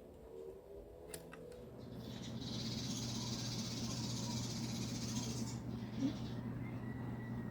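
A desktop computer being switched on: a click or two, then a steady hum starts up, with a louder rush of fan noise for about three seconds that then dies back to the hum.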